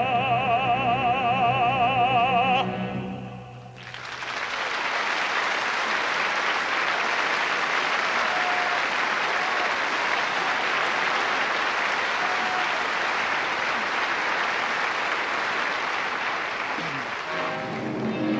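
An operatic tenor's last held note, with a wide vibrato, ends about three seconds in. After a brief lull a theatre audience applauds steadily for over ten seconds. An orchestra starts up just at the end.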